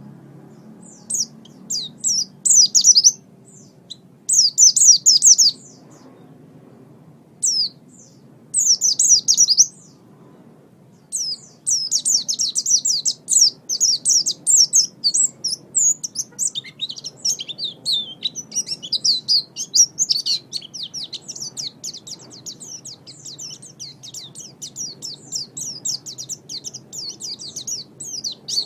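White-eye (pleci) singing: fast, high twittering phrases in short bursts with pauses during the first ten seconds, then a long, almost unbroken run of rapid chirping.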